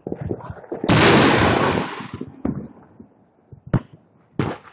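Fireworks going off: scattered pops, then a loud blast about a second in that fades over about a second, and two sharp cracks near the end.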